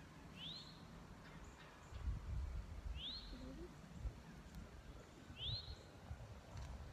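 A bird calling: three short rising chirps, evenly spaced about two and a half seconds apart. Low rumbling noise comes in about two seconds in.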